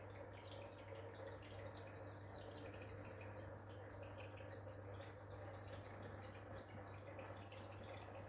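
Aquarium internal filter running: a faint steady hum with a light patter of trickling, dripping water over it.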